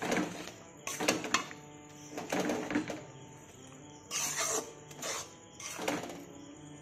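Flat metal spatula scraping the inside of a metal kadai as it stirs a thick tamarind and jaggery mixture, in about six strokes with short pauses between.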